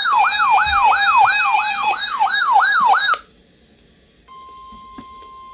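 A loud electronic siren sweeping up and down about three times a second, cutting off abruptly about three seconds in. About a second later a quieter steady single tone begins: the 1050 Hz NOAA Weather Radio warning alarm tone that comes before the spoken warning.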